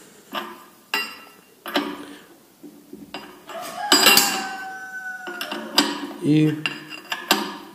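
Steel spanner and other hand tools clinking and knocking against the metal housing of a tractor power-steering unit, with one loud clang about four seconds in that rings on for about a second.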